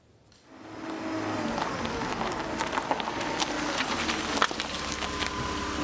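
A vehicle engine running, with road and wind noise and light ticking, fading up about half a second in after a brief hush.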